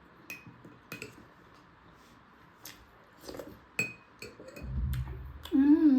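Eating utensils clinking against a dish, with scattered small clicks and two brief ringing clinks, then a short low rumble of handling. Near the end comes a short hummed "mmm" of enjoyment, the loudest sound.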